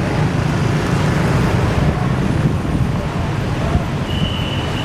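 Large buses running and pulling away, a steady deep engine rumble mixed with traffic noise. A brief high, steady tone sounds near the end.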